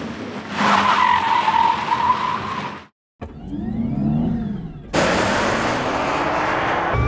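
A run of electric-vehicle sound effects: a car with a steady high squeal, like tyres or brakes, then a short cut to silence, a motor whine that rises and falls, and then road noise with a motor whine slowly rising as the vehicle speeds up.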